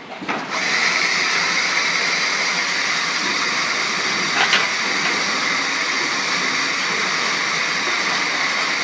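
Corn silage baling machine starting up about half a second in, then running with a loud, steady, hissing mechanical noise, with a brief higher squeal about four and a half seconds in.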